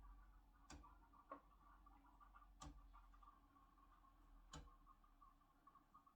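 Near silence with faint, sharp ticks about every two seconds and a faint steady hum.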